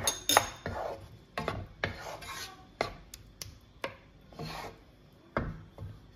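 Wooden spatula stirring thick curry gravy in a coated frying pan: irregular scrapes and knocks of the spatula against the pan, loudest near the start.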